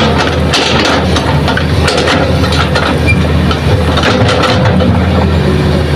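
Hitachi hydraulic excavator's diesel engine running steadily under load while its bucket empties hard soil into a steel dump truck bed. Soil and stones clatter into the bed in several bursts: about half a second in, around two seconds, and about four seconds in.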